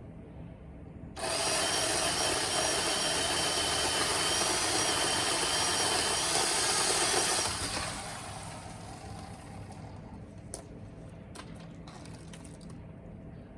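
Remington Ranger II electric pole chainsaw running with a high motor whine, cutting through a large limb of a dead ash tree. It starts about a second in, runs steadily for about six seconds and winds down. A few faint clicks and knocks follow.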